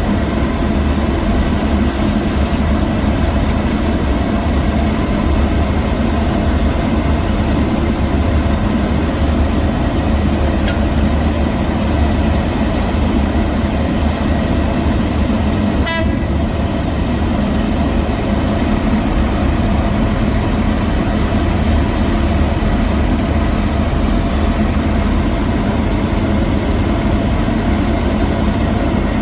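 Heavy diesel road-construction machinery running with a steady, unbroken drone, with one sharp click about sixteen seconds in.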